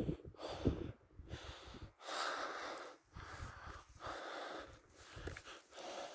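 A hiker breathing hard while climbing a steep mountain path, a breath about every second. Low rumbles and thumps on the phone microphone.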